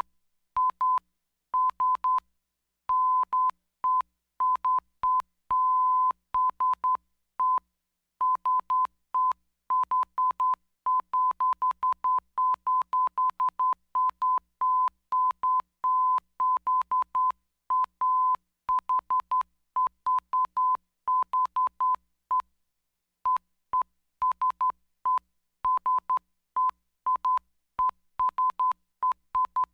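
Morse code keyed as a single high beep tone, switched on and off in quick short dots and longer dashes with brief gaps between letters and words.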